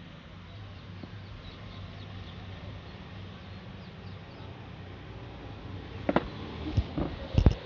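Faint steady low hum, then from about six seconds in a quick run of four or five sharp knocks, the loudest near the end.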